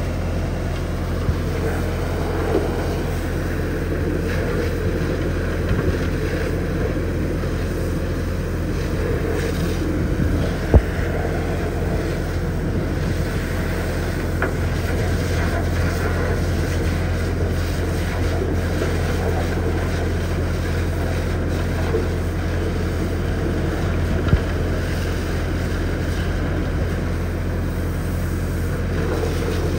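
High-pressure water jet spraying steadily against the inside of a vacuum truck's steel tank, with sludge and water splashing out, over a constant low engine drone. A brief sharp knock about 11 seconds in.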